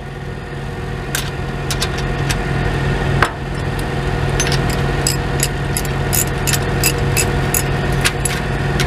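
A diesel truck engine idling steadily, slowly getting louder, with light metallic clicks and taps of hand tools on an exhaust clamp's nuts and bolts, coming faster in the second half.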